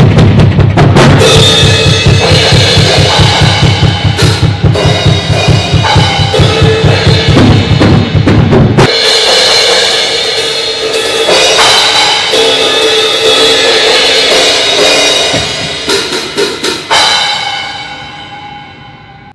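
Acoustic drum kit played hard. For the first nine seconds there is a fast, steady bass-drum pattern of several beats a second under crashing cymbals. The bass drum then drops out and the playing goes on with cymbals and drums before it dies away near the end.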